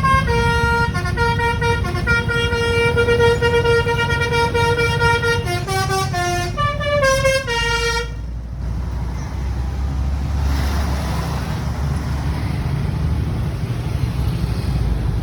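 A bus's Basuri telolet horn plays a stepping melody of held notes for about eight seconds over the bus engine's low rumble. The horn then stops, and the engine rumble carries on and swells as the bus passes.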